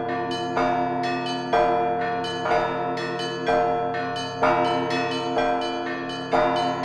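Church bells ringing a continuous peal: several bells struck in quick succession, their tones ringing on and overlapping, with a louder stroke about once a second over lighter strikes in between.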